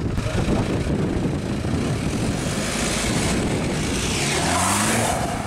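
Rally recce car, a road-going hatchback, pulling away close by: engine pulling steadily, its revs climbing about four seconds in, with a falling rush of tyre and wind noise as it goes past.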